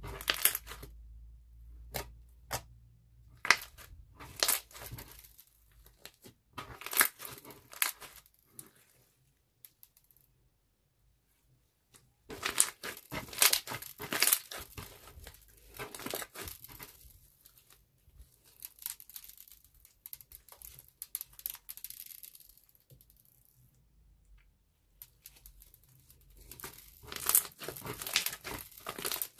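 Hands kneading and squeezing a thick slime mixed with small beads, giving irregular crackling and popping. Dense runs of crackles come about 12 seconds in and again near the end, with a near-silent pause just before the first.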